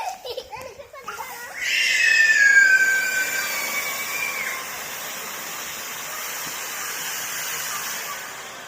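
A small firework goes off about a second and a half in. It gives a shrill whistle of several tones that falls slightly in pitch, then settles into a steady hiss of spraying sparks that fades near the end.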